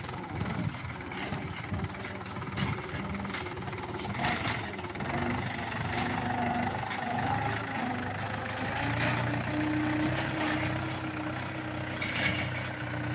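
Mahindra 475 DI tractor's diesel engine running steadily as the tractor pulls a harrow across a ploughed field.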